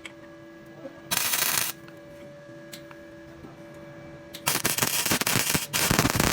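Electric welder crackling and spitting in short bursts while welding steel: one brief weld about a second in, then two longer ones back to back near the end.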